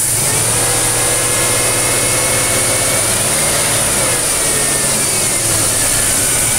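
1992 Cadillac 4.9-litre V8 running at raised revs with the throttle held open by hand. The revs rise just after the start and hold, dip and pick back up about halfway through, then hold again. The engine has a miss on cylinder 6, whose injector is not getting a firing signal from the engine computer; replacing the ECM later cured it.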